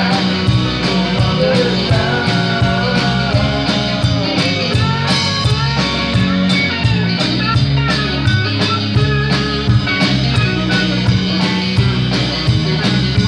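Live band playing a country-rock song on bass guitar, acoustic guitar, electric guitar and drum kit, with a steady drum beat.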